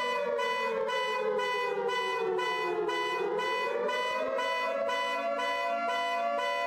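Synthesized emergency alert alarm: a chord of steady high tones pulsing rapidly and evenly, with a siren tone underneath that slides down for about three seconds and then climbs back up.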